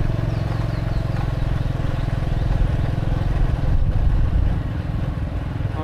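Motorcycle engine running steadily, with a fast, even pulse.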